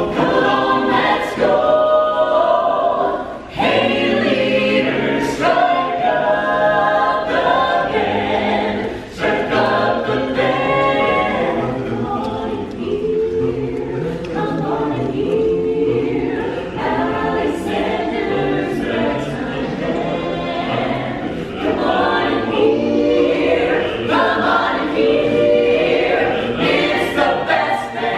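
A cappella choir singing: several voices in harmony with no instruments, the chords shifting steadily throughout.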